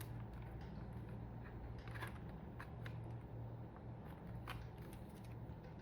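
Faint, scattered clicks and light taps of a mechanical keyboard's parts being handled during disassembly, over a steady low hum.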